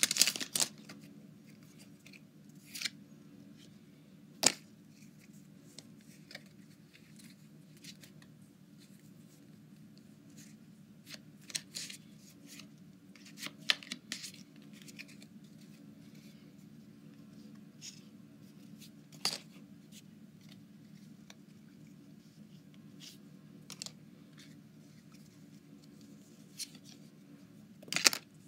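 Scattered short crinkles and snips of foil Pokémon booster-pack wrappers being handled and opened, with a denser burst of crinkling at the start and again near the end. A low steady hum runs underneath.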